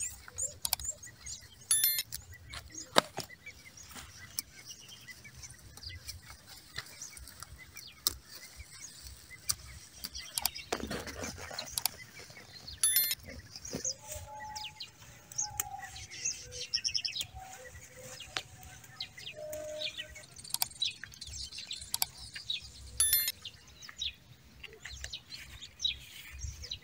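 Amaranth leaves and stems rustling and clicking as they are picked by hand and dropped into a plastic basin, with birds chirping.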